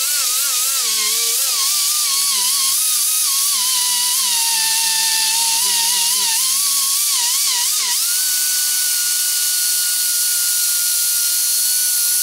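Air-powered angle grinder with a metal prep disc grinding the edge of a steel lawn mower blade to sharpen it: a loud, high whine. For about eight seconds the pitch wavers and dips as the disc bears on the edge, then it jumps up and holds steady near the end.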